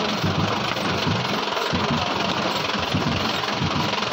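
A CJ jeep's engine running at low speed with an uneven low throb as the jeep crawls over a rocky track.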